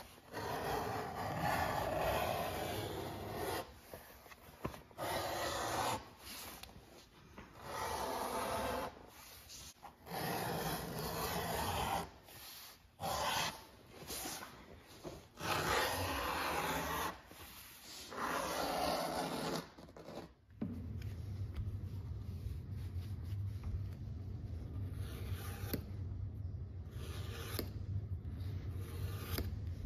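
Wooden strap cutter being drawn through a leather hide, its blade slicing in about eight separate rasping strokes of one to three seconds each. About two-thirds of the way through this gives way to a steady low hum with light scraping.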